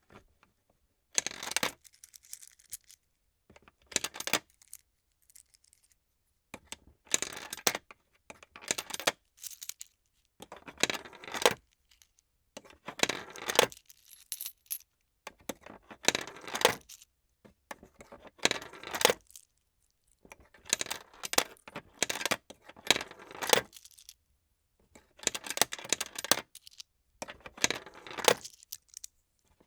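Coins dropped one after another into a plastic coin sorter, each rolling along the tray and then clattering down into its slot. The clinks and rattles come in short bursts about every one to two seconds, with brief silences between them.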